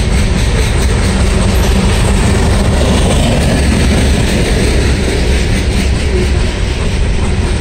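Loaded coal train's hopper cars rolling past close by: a steady, loud rumble of steel wheels running on the rails.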